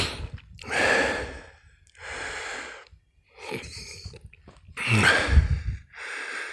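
A man breathing hard: five heavy, noisy breaths about a second apart, one near the 5-second mark voiced like a grunt. He is winded from climbing a hill on snowshoes.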